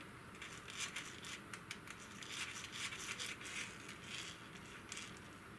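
Small parts of a 1/10-scale RC crawler being handled at a workbench: irregular light clicks, taps and rattles.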